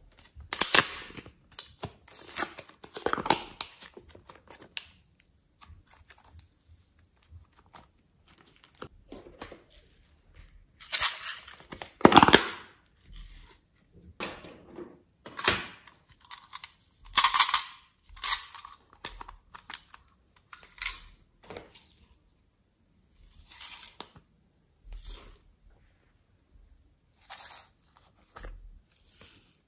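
Small plastic craft containers being handled over a glass mixing bowl: an irregular run of clicks, crinkles and rustles as pink clay is pushed out of its square tub and a tray of glitter flakes is tipped. The loudest bursts come near the start, around the middle and a little after.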